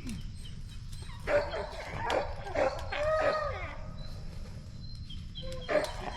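Hunting hounds barking and bawling: a run of calls from about a second in, lasting a couple of seconds, then more starting near the end.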